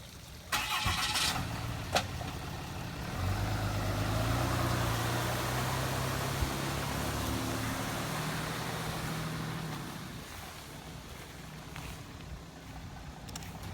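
Pickup truck engine running, with a broad rushing hiss over it, louder from about three seconds in and fading after about ten seconds. A short noisy burst about half a second in and a click at two seconds.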